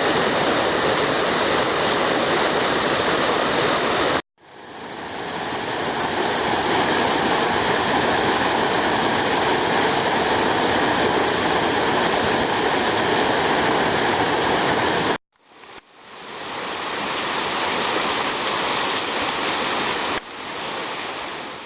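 Creek water rushing steadily. It cuts out abruptly twice, then swells back in over a second or two each time.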